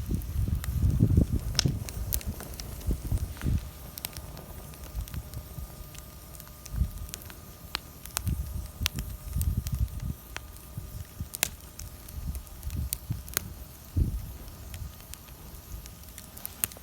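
Wood bonfire crackling, with irregular sharp pops and low rumbling bursts.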